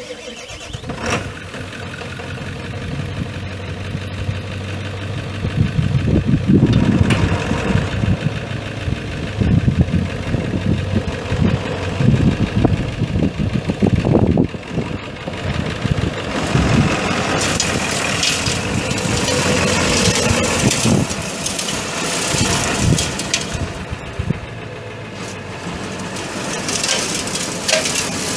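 A 1997 Ford F350's 7.3-litre turbo-diesel V8 starting near the beginning and then running.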